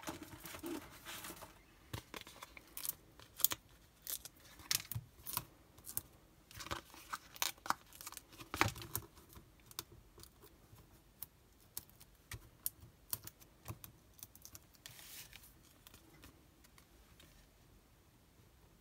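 Foam adhesive dimensionals being peeled from their sheet and pressed onto card, with paper and cardstock handled on a craft mat: a run of small, sharp clicks and rustles, dense for the first half and thinning out later.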